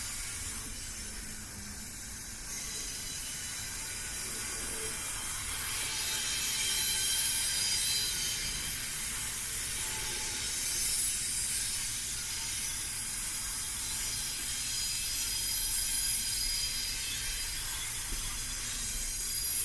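Double-stack container cars of a long freight train rolling past on steel rails, with a hiss and thin squeal from the wheels over a low rumble. It gets louder about six seconds in.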